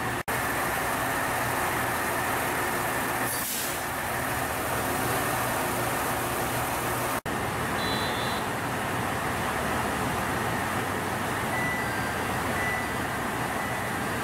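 Diesel engines of a KiHa 187 series railcar idling steadily while it stands at a platform. A brief hiss sweeps down about three and a half seconds in, and the sound drops out for an instant twice.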